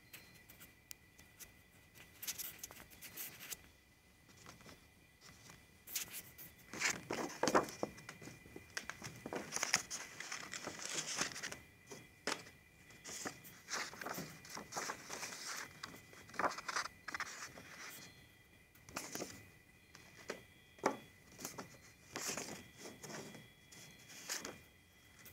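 Irregular scratching and rustling of sketchbook paper being handled close to the microphone, in uneven bursts. Under it runs a faint, steady high-pitched whine.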